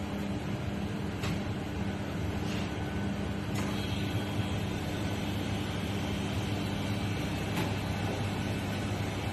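Steady low mechanical hum of kitchen equipment, with three faint knife taps on the plastic cutting board.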